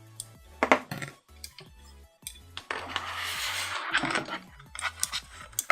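Small hard plastic parts clicking and knocking as they are handled and fitted together, with a stretch of rustling about three seconds in, over background music.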